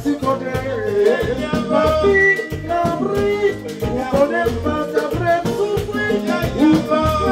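Live band playing Latin dance music: a male lead singer over bass guitar and keyboard, with a metal güira scraped in a steady rhythm.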